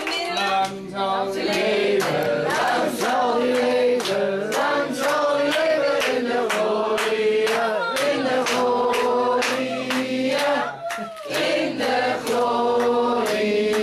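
A group of adults and children singing a birthday song together, with hands clapping in time to the beat.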